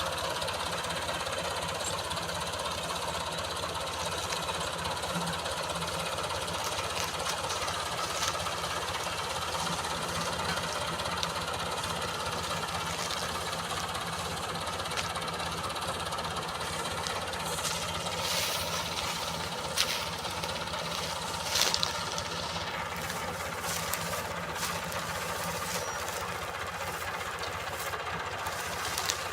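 Combine harvester running steadily as it cuts wheat, a constant mechanical drone, with a few brief sharp clicks in the latter half.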